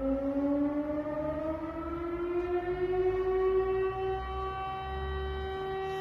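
Air-raid siren sounding an alert: its wail rises in pitch over the first four seconds or so, then holds a steady note.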